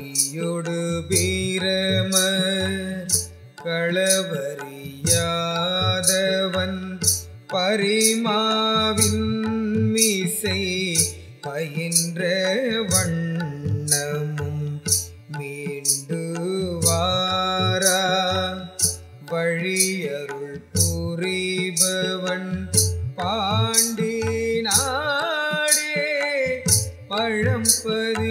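Tamil devotional music in Carnatic style: a melodic line that bends and glides in pitch, in phrases of a few seconds, over a steady percussion beat.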